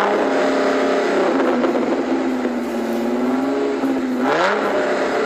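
Car engine revving sound effect: the engine revs up, holds a steady note, then drops and revs up again about four seconds in.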